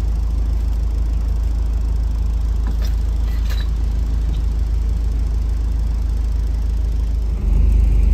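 Four-wheel-drive vehicle under way, a steady low rumble of engine and road noise that gets louder about seven seconds in.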